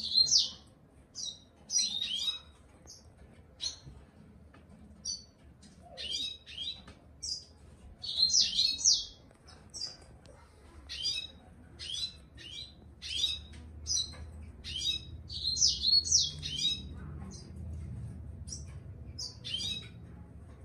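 Yellow-fronted canary (green singer) singing in short, high chirping phrases with brief gaps between them, about one phrase a second.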